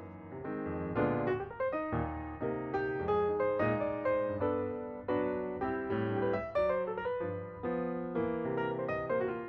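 Background piano music: chords and notes played at an even pace, with no speech.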